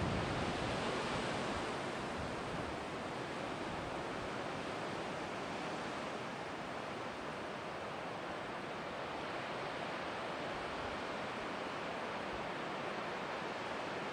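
Steady rushing wind noise, an even hiss with no distinct events, a little louder in the first couple of seconds.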